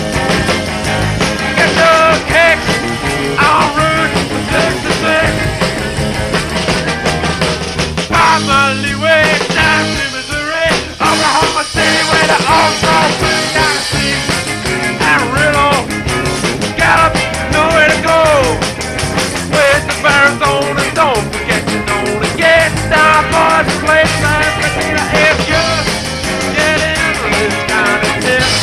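Rock band with electric guitars, bass and drums playing an upbeat rock and roll number, played back from an old live cassette recording.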